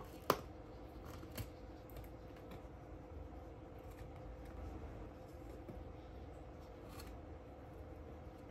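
A few light taps and clicks of a chinchilla's feet on a thin wooden box lid and the floor, the sharpest one a fraction of a second in, then scattered softer taps. Under them, faint room noise with a steady low hum.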